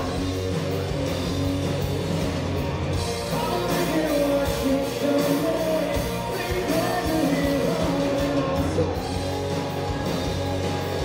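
Live rock band: a male lead singer with electric guitar, backed by drums, heard from within the audience.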